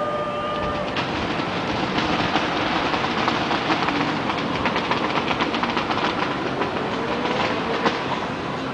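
Fireworks crackling: a dense run of rapid small pops that thickens a second in and thins out near the end, with a few brief whistling tones.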